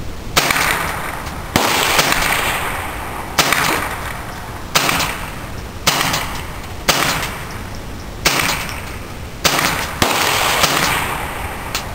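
Semi-automatic fire from an AR-15 rifle running a CMMG .22 LR conversion kit: about ten single shots, roughly one a second, each followed by a long echo.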